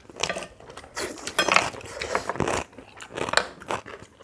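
People eating a rice-bowl meal: chewing and biting, with scattered short clicks and knocks of cutlery and dishes.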